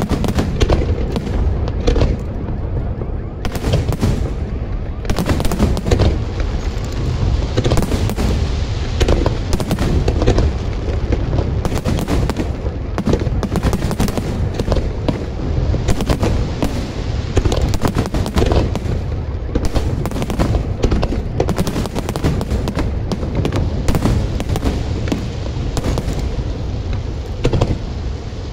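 Aerial fireworks bursting in a dense, rapid barrage: many overlapping bangs, one after another without a pause, over a steady low rumble.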